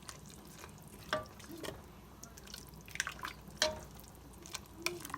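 Chicken soup being stirred in a pot, the broth sloshing with a few liquid plops and light clicks of the utensil scattered through.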